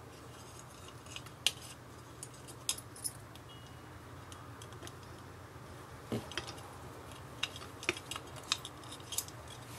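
Scattered light clicks and ticks from handling a small USB charger's circuit board and plastic shell, with a small screwdriver tip tapping against the parts, over a faint steady low hum.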